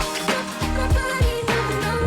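Outro music with a steady drum beat.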